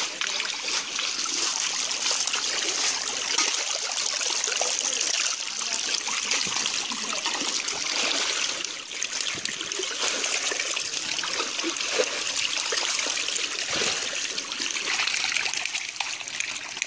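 A crowd of fish thrashing and wriggling together in shallow muddy water, making a steady wet splashing and trickling with many small splats.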